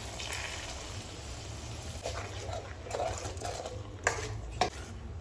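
Thick tomato-cashew puree poured into a hot steel kadai onto fried onion paste, with a soft hiss and bubbling. A spoon then stirs it in, with two sharp clinks against the pan about four seconds in.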